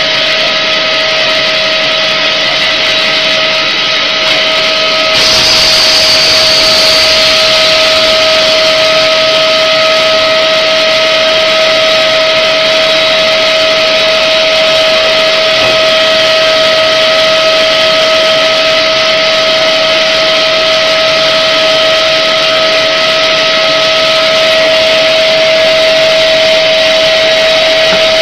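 HDPE extrusion blow-moulding machine running: a steady whine over dense mechanical hiss, which grows louder and hissier about five seconds in and then holds steady.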